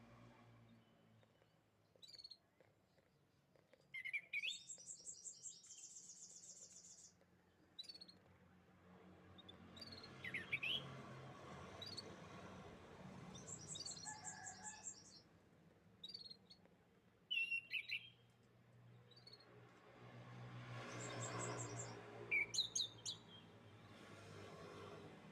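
Canaries singing in separate phrases: short chirps, quick rising whistles and fast high trills, the longest lasting about three seconds, with pauses between phrases. A faint low hum sits underneath.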